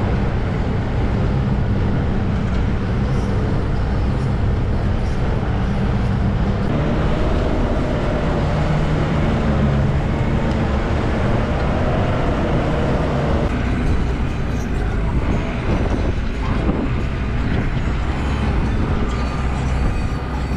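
Off-road SUV driving over rough tundra, heard from a camera mounted on the outside of the body: a steady, loud engine and tyre rumble, with the engine note wavering in the middle and some clatter after it.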